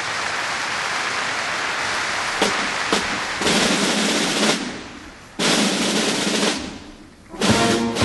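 Snare drum rolls from a military drum section. A sustained roll swells up and is cut by two sharp strokes, then come two shorter rolls. Near the end the band joins with pitched instruments.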